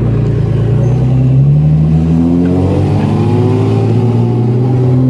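Car engine pulling hard under acceleration, its pitch climbing for about three seconds, then dropping at a gear change and running on steadily.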